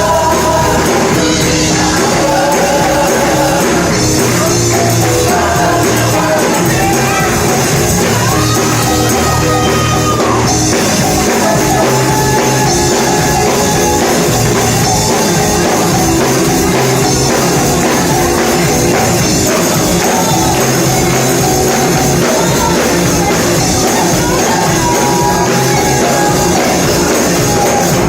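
Live gospel worship music: voices singing over a band, with a tambourine shaking along throughout.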